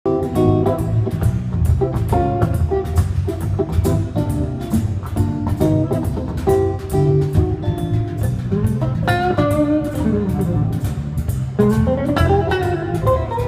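A live trio playing: electric guitar over a drum kit keeping a steady beat, with a strong low bass line underneath. Notes slide in pitch in the second half.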